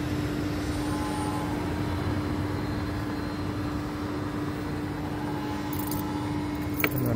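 Steady engine hum holding one constant low tone over even outdoor noise, with a short sharp click near the end.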